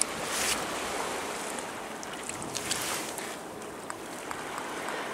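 Outdoor wind and river water washing against the shore, a steady noisy rush, with a few faint light clicks of stones underfoot or underhand.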